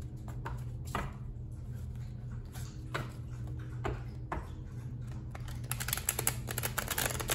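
A deck of tarot cards being shuffled by hand: scattered single taps and flicks of the cards, then a quick run of card clicks near the end. A steady low hum sits underneath.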